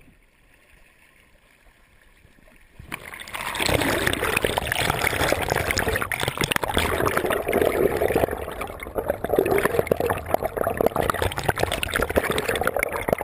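Moving shallow water heard by a camera held just under the surface: dense gurgling, bubbling and splashing that starts suddenly about three seconds in, after a faint, quiet start.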